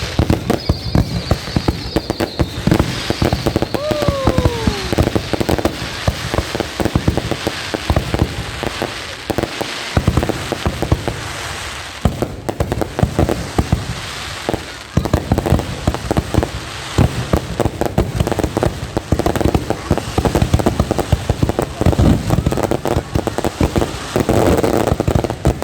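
Fireworks going off in rapid succession: dense crackling and popping, with brief lulls about ten and fifteen seconds in.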